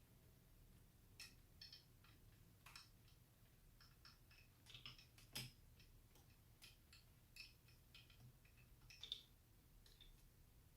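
Faint, scattered clicks and ticks of hard plastic as the jointed legs of a Masters of the Universe Origins Stridor toy horse are moved and posed, at irregular moments, the sharpest about five seconds in.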